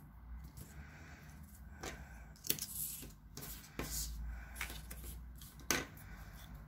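Masking tape and card being handled on a wooden desk: tape pulled off its roll and pressed down along a card edge, and card pieces set down and slid aside, in a few short rustles and taps.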